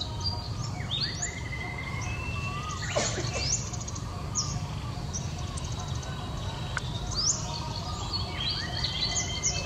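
Small birds chirping, with short, quick rising chirps and a few held whistled notes repeating throughout, over a steady low background rumble.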